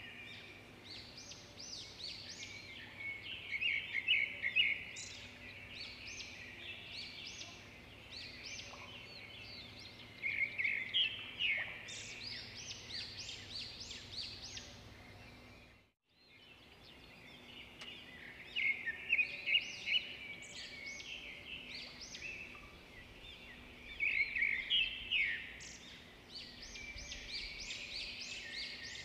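Several songbirds singing in deciduous woodland, overlapping songs and quick trills over a faint steady background. The sound dips briefly to silence about halfway through, then the birdsong resumes.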